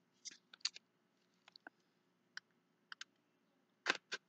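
Small perfume box being handled and opened: scattered light clicks and taps of packaging, with two louder knocks near the end.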